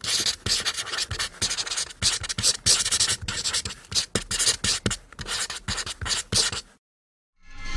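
Marker writing on paper: quick, irregular scratching strokes of the felt tip, stopping abruptly about a second before the end.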